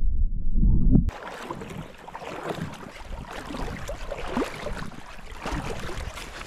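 Muffled low rumble of creek water heard through a submerged camera, cutting off about a second in. It gives way to the lighter splashing and trickling of shallow creek water around hands at the surface, full of small plops and gurgles.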